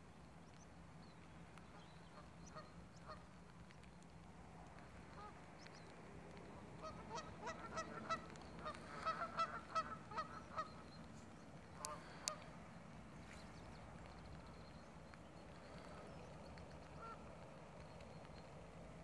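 Geese honking on a loch, a run of repeated calls about seven to eleven seconds in, with scattered calls before and after over a faint steady low hum. A couple of sharp clicks come about twelve seconds in.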